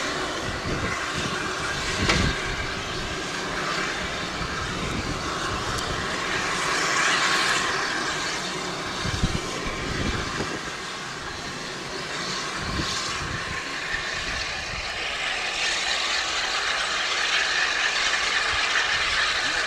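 Steam train running: a steady rushing hiss and rumble with a few irregular low thumps.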